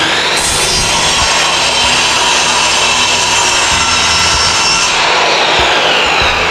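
Skil Masters mitre saw running at full speed, its blade cutting through primed MDF skirting board for an external mitre. About five seconds in the motor whine starts to fall as the blade winds down.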